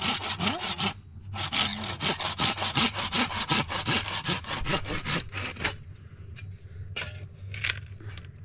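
Saw cutting through wood in quick, even strokes, about five a second, with a short break about a second in, stopping at about five and a half seconds; a few light knocks follow.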